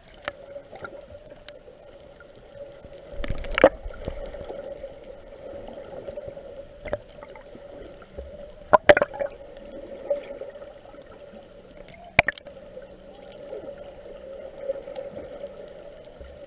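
Underwater sound while snorkeling: a muffled, gurgling water ambience with a steady hum running through it, broken by sharp knocks about three and a half, nine and twelve seconds in.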